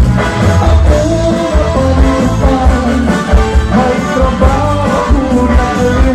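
Live band music in a cha-cha-cha style, loud and continuous, with a steady bass-and-drum beat under a melody line.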